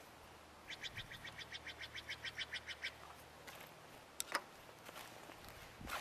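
A bird's trill: a rapid, even series of short high notes, about nine a second, lasting about two seconds. About four seconds in come two sharp clicks.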